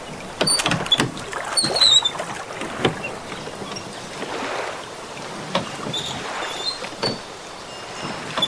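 Wooden rowboat being rowed with a pair of oars: irregular wooden knocks of the oars against the boat, with water sloshing along with the strokes.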